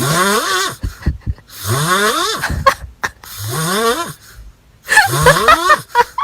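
Cat snoring: about four rising, pitched snores, each under a second long, coming roughly every one and a half seconds.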